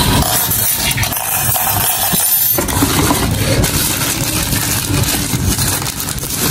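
Plastic wrapping and bubble wrap crinkling and rustling as they are handled and pulled out of a cardboard box, a steady run of close, crackly rustles.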